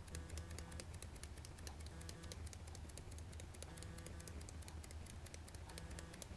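Faint rapid clicking, several clicks a second, over a steady low hum.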